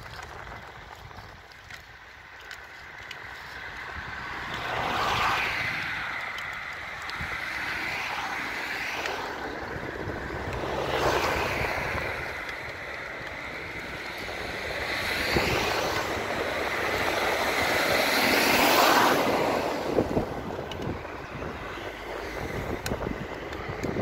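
Cars passing on a nearby road, each one swelling up and fading away as it goes by, about three or four times, over a steady hiss of wind on the microphone.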